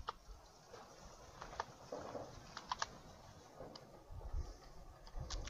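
Computer keyboard being typed on slowly: a handful of faint, scattered key clicks, some in quick pairs.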